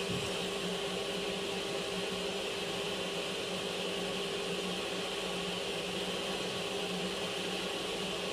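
Table saw and its dust extraction running steadily with no load, a constant hum, just after the blade has finished a rip cut through an acrylic sheet.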